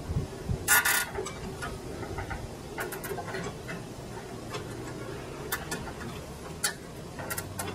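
Nylon zip ties being pulled tight by hand: a short ratcheting zip about a second in, then scattered single clicks of the ties being cinched.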